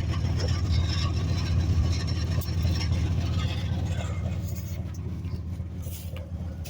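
1995 Chevy's engine running steadily with a low hum, growing somewhat fainter after a few seconds.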